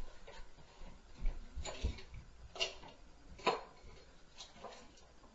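Irregular knocks and clicks, about six in a few seconds, a couple with a low thud beneath them: impact noise from the upstairs neighbours' apartment.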